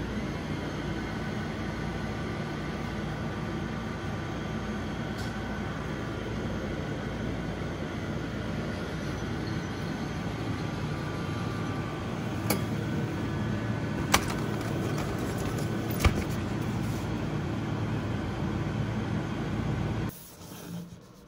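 Steady mechanical hum of a refrigerated food vending machine dispensing a salad cup, with three sharp clicks a couple of seconds apart from its mechanism in the second half. The sound drops away abruptly near the end.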